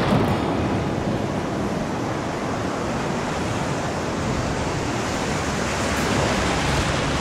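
Ocean surf heard from right at the waterline in the shallows: a steady rush of breaking waves and foam washing in.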